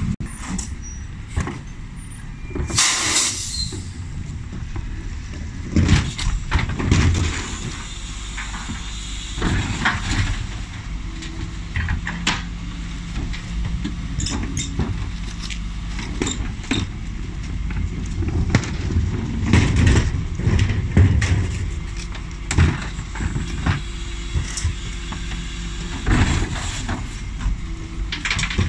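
Dennis Elite 6 refuse truck running at the kerb while its Terberg OmniDEL bin lift tips wheelie bins: a steady low engine drone under repeated knocks and clatter of plastic bins and lids being wheeled, hooked on and lifted. A short loud burst of air hiss about three seconds in.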